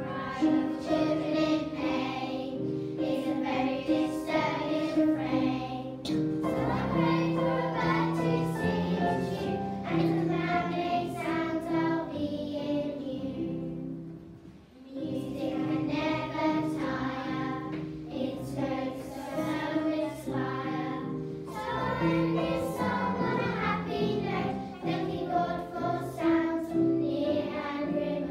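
A group of young girls singing a song together with instrumental accompaniment, with a brief pause between phrases about halfway through.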